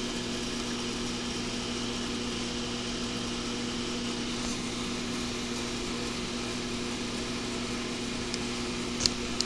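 Steady mechanical hum of a running machine, unchanging throughout, with two short sharp clicks about nine seconds in.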